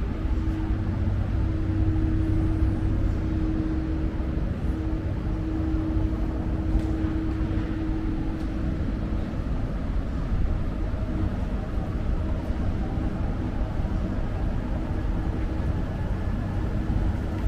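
Steady low mechanical hum and rumble, with one constant tone held through most of it.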